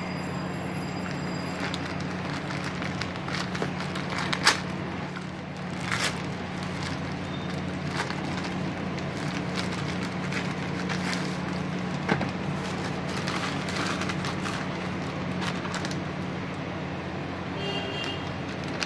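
Plastic courier mailer bag being handled, crinkling and rustling with scattered sharp crackles, the loudest about four and a half seconds in, over a steady low hum.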